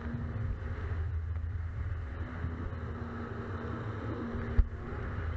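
Jet ski engine running steadily at speed, with water rushing under the hull, and one sharp thump a little over four seconds in.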